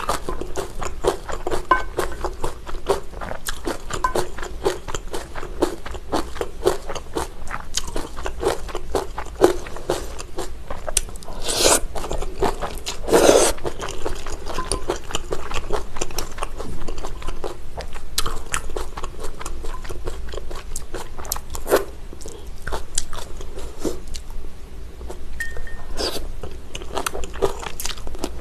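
Close-miked eating sounds: wet, rapid chewing and mouth clicks on chewy long rice-cake tteokbokki and flat glass noodles in jjajang buldak sauce. Two louder rasps come a little before halfway.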